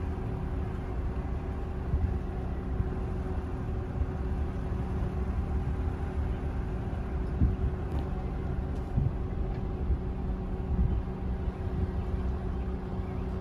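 Car driving along an orchard track, heard from inside the cabin with the window down: a steady low rumble of engine and tyres with a faint steady hum.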